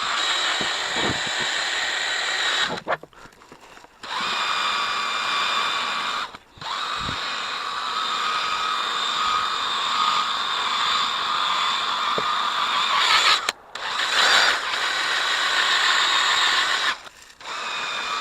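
Power drill spinning a buffing wheel to polish compound into a plastic taillight lens, running with a steady whine. It stops briefly four times: about three seconds in, around six seconds, near fourteen seconds and around seventeen seconds.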